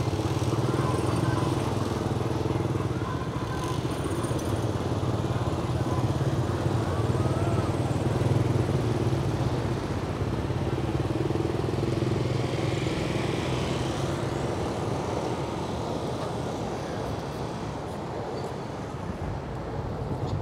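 A motor vehicle's engine running steadily, swelling slightly about eight seconds in and easing off near the end.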